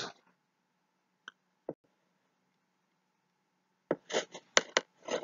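A quiet pause with a faint steady hum, two small clicks a little over a second in, then from about four seconds a quick run of sharp clicks and taps.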